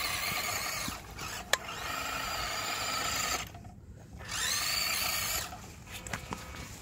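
WPL 1/10 Suzuki Carry RC truck's small electric drive motor and gearbox whining in three bursts of throttle, the rear-wheel-drive truck struggling for grip on snow. A sharp click about a second and a half in.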